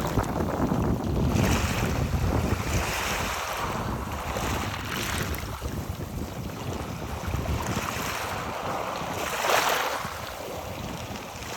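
Waves washing over rocks, the stones clicking as the water runs over them, with wind buffeting the microphone. The washes come every second or two, the largest about nine seconds in.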